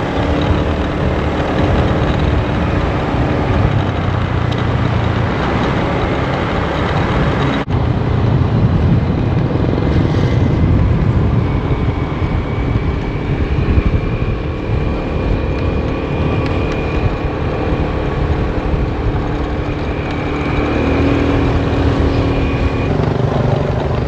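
Motor scooter running along the road, with heavy wind rush on the microphone and a steady engine drone underneath. A brief dropout comes about seven and a half seconds in.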